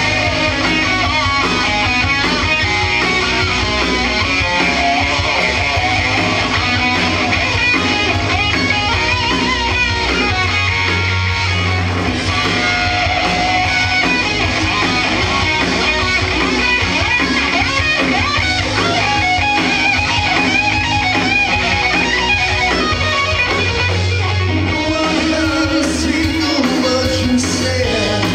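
Live rock band playing, electric guitar to the fore over bass guitar and drums.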